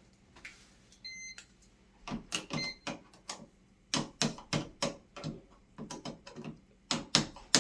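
A short electronic beep about a second in and a shorter one shortly after, then a run of sharp clicks and knocks, about two a second, until the end.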